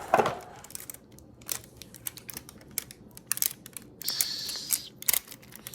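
Scattered small clicks and taps of computer parts being handled, with a brief rustle about four seconds in.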